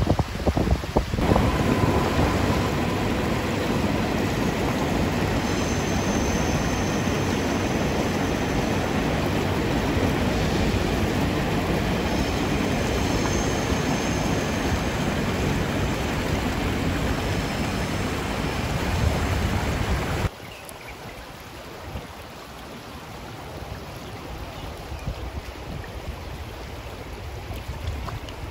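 Shallow river riffle flowing over rocks, a steady rushing of water with some wind buffeting the microphone in the first second. About two-thirds of the way through the level drops suddenly to a quieter rush of moving water.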